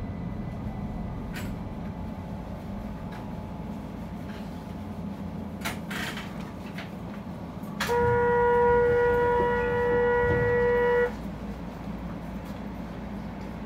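Keihan 800 series electric train running with a low rumble and a few sharp clicks, then its horn sounds one steady, loud note for about three seconds, starting a little past the middle and cutting off sharply.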